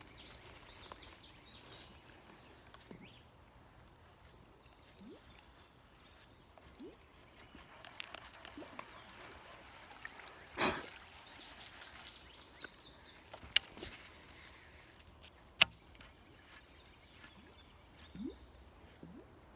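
Quiet creekside ambience with birds calling now and then and a few sharp clicks scattered through it.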